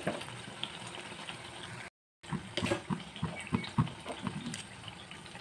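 Dim pitha (egg-batter fritters) deep-frying in hot oil: a steady sizzle with scattered crackles and pops. The sound cuts out briefly about two seconds in, and the crackling is busier after that.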